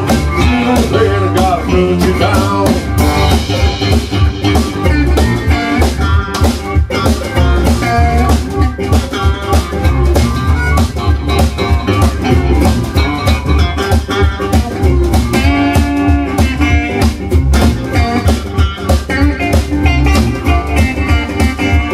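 Blues band playing an instrumental break: harmonica leading over a resonator guitar, an electric guitar and drums keeping a steady beat.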